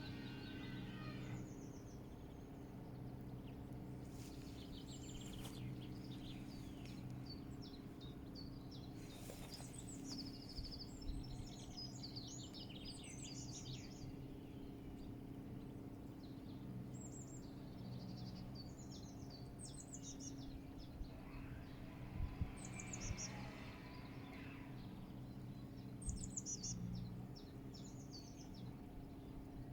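Songbirds chirping in short, rapid high trills, one every second or two, over a steady low background drone.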